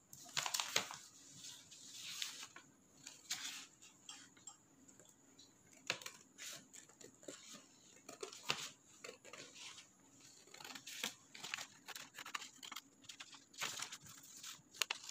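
Scissors cutting through a sheet of paper: irregular snips with the paper rustling as it is held and turned.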